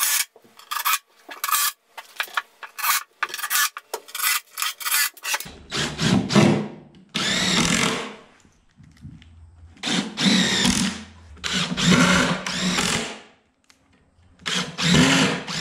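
A cordless drill driving screws into wooden boards: about five separate whining bursts of a second or so each, the pitch rising and falling as each screw goes in. Before them come a few seconds of quick short knocks and scrapes.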